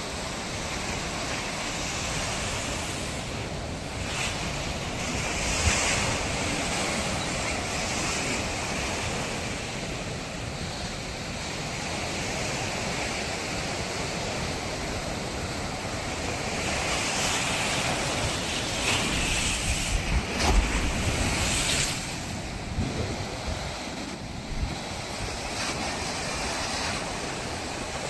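Ocean surf breaking on a beach, swelling and easing in slow surges, with wind buffeting the microphone in low thumps about two-thirds of the way through.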